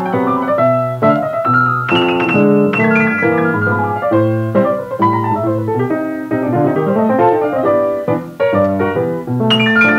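Easy-listening piano background music, a steady flow of chords and melody notes over a repeating bass line.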